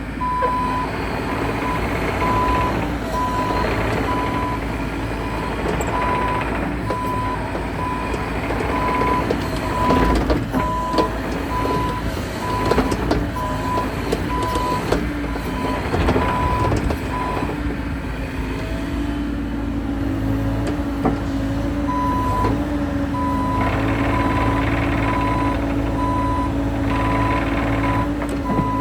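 Bobcat E50 compact excavator's diesel engine running under hydraulic load, with its travel alarm beeping steadily while the machine tracks. The beeping stops for a few seconds about two-thirds of the way through, then starts again. Several sharp metal knocks come in the middle.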